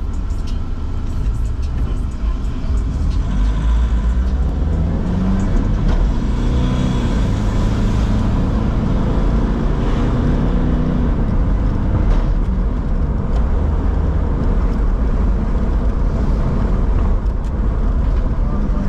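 Car cabin noise while driving: a steady low engine and road rumble, with tyres on wet pavement.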